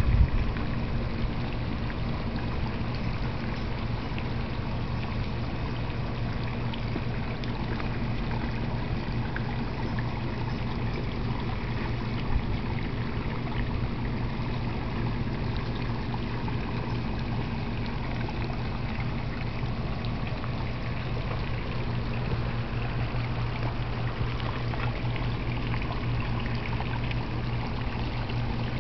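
Water pouring and trickling steadily into a koi and goldfish pond, with a steady low hum underneath.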